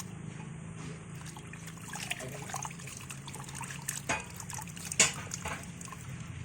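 Soybean splitting machine for tempe running with a steady low hum, with scattered ticks and clicks of beans from about two seconds in and one sharp click about five seconds in.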